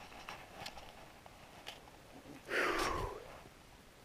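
A person's breathy exhale, a sigh that slides down in pitch, about two and a half seconds in, after a few faint ticks.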